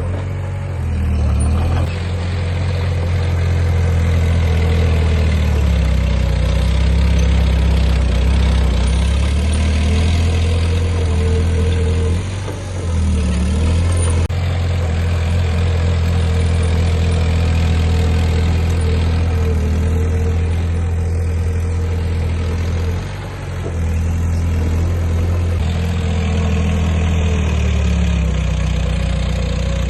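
Heavy diesel engine of earthmoving machinery running, its pitch rising and falling as it works, and easing off briefly twice.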